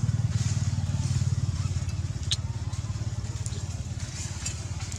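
An engine running with a steady low rumble that eases off slightly over the last few seconds, with a few sharp clicks over it, one of them about two seconds in.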